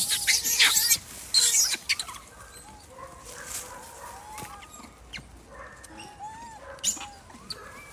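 Wild macaques calling: harsh screeches in the first two seconds, then a scatter of short rising-and-falling calls.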